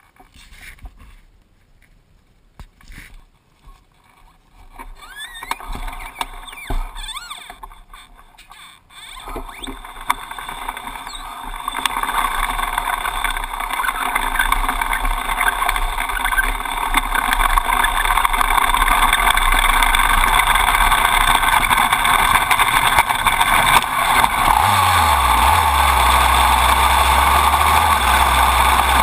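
Soft knocks and handling noises, then a dirt bike's running and drive-chain noise that builds up over several seconds and settles into a loud, steady sound as the bike rides off over dirt. A low hum joins in about three-quarters of the way through.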